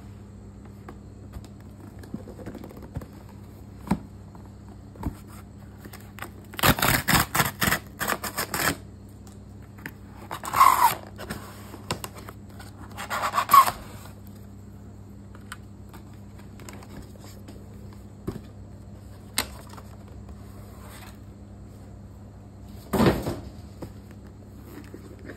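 A cardboard shipping box being opened by hand: a quick run of crackling rips about a quarter of the way in as the cardboard is torn open, then two scraping slides of cardboard on cardboard, and a bump with a scrape near the end as the white retail box inside is lifted out.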